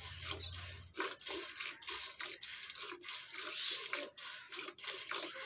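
Hand-milking: squirts of milk from a cow's teats hissing into a steel bucket in a quick even rhythm, about three a second, as the teats are test-milked to show they give a clean stream.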